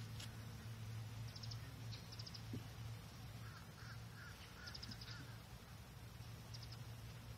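Quiet open-air ambience: small birds give short chirps and quick trills several times over a steady low hum.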